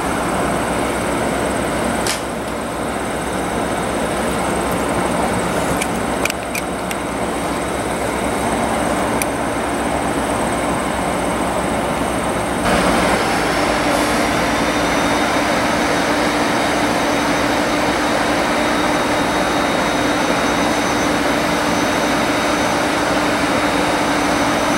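Diesel locomotive engine running steadily, with a few sharp clicks in the first half. About halfway through it gives way to another train's diesel locomotives, a steady hum with a high whine over it.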